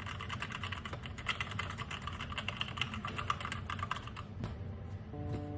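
Fast typing on a mechanical keyboard: a dense run of key clicks that stops about four seconds in. Background music notes begin near the end.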